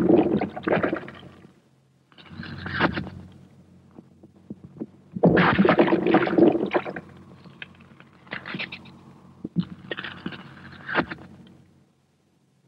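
Animated sound effects of a vulture pecking and tearing at a man's feet: about five rough, noisy bouts full of sharp clicks, a second or two apart, over a faint steady hum.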